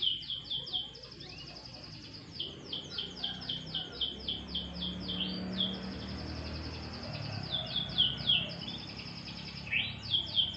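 Domestic canary singing: quick rolls of repeated down-slurred notes, with a steady fast trill around the middle. A low background rumble sits under the song.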